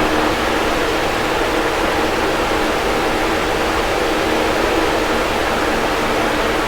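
Box fan running steadily: an even rush of moving air with a faint low hum from the motor.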